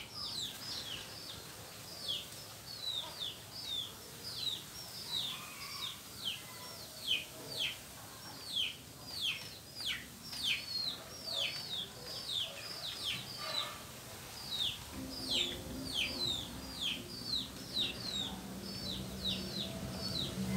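A bird peeping over and over: a long, regular series of short, high notes, each sliding downward, about two a second.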